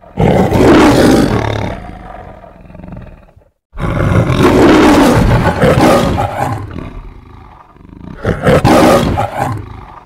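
Lion roaring three times, the logo roar of the MGM film studio intro. Each roar starts loud and fades; the third, near the end, is shorter.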